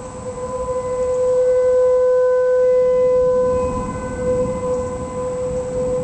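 Outdoor tornado warning siren sounding a steady wail at one pitch. It swells louder about a second in and eases back after a few seconds.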